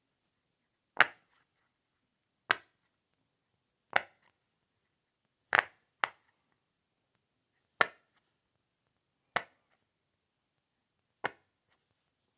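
A series of eight sharp, short pops, one every one and a half to two seconds, with two coming close together a little past halfway, and silence in between.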